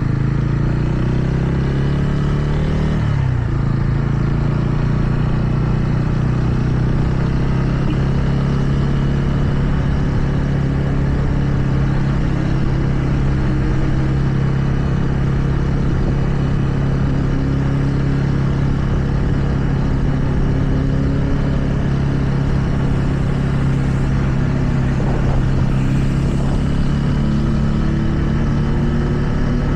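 TVS Ronin's single-cylinder engine running under way. The engine note rises over the first few seconds, drops about three seconds in, then holds a steady cruising note, with road and wind noise beneath.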